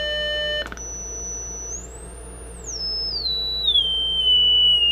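Zenith field-coil radio speaker playing an audio generator's test tone through its freshly repaired output transformer. The tone starts steady with overtones, then a click comes just under a second in, followed by a thin high whistle that climbs higher and steps back down to a steady tone. The clean tone shows the repaired transformer passing signal: it seems to be functional.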